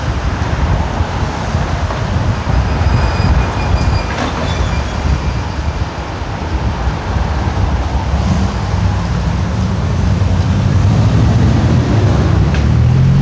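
Street traffic noise with wind on the microphone: a steady rumble of vehicles that grows louder near the end.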